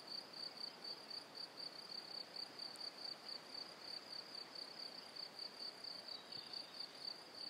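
A cricket chirping, faint, in a steady run of evenly spaced high-pitched chirps.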